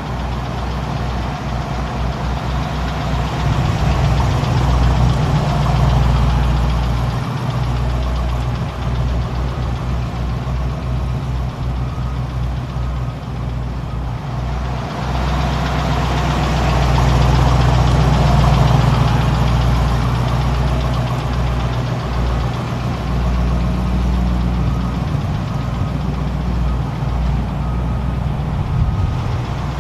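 1975 Chevrolet K5 Blazer's rebuilt 350 cubic inch V8 running steadily, swelling louder twice.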